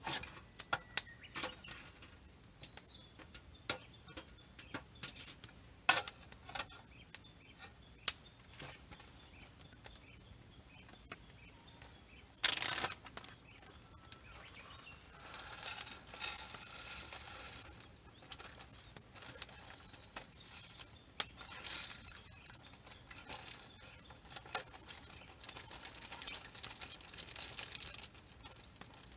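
Wood campfire crackling, with irregular sharp pops and snaps throughout and a few rustling stretches in between.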